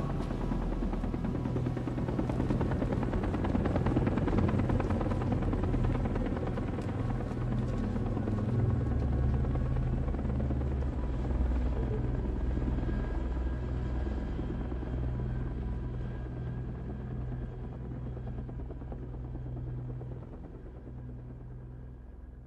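Bell UH-1 'Huey' helicopters running, with a fast, steady rotor chop, as they fly away. The sound fades gradually over the second half.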